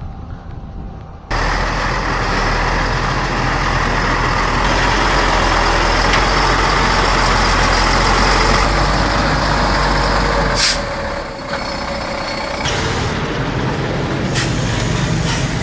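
Heavy truck engine running loud and steady, under a dense rush of mechanical noise that starts suddenly. The sound changes abruptly several times from about ten seconds in.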